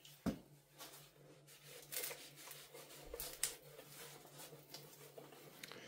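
Faint rustling and rubbing of a cloth rag wiping oil residue off a metal lathe tailstock, with a light knock just after the start.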